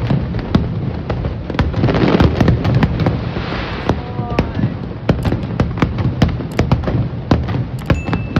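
Fireworks display: a dense, irregular barrage of loud bangs following close on one another, with a stretch of rapid crackling about two seconds in.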